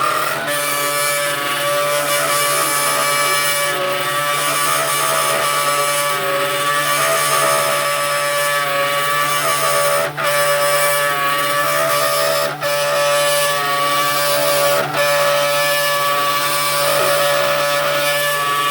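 A CNC machine running steadily: a high, even machine whine over a hiss. It dips briefly three times, around 10, 12 and 15 seconds in.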